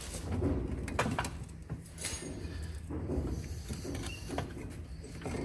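Scattered metal knocks and scrapes as a car's front hub assembly is worked off the driveshaft, a few sharp clinks among them over a low rumble.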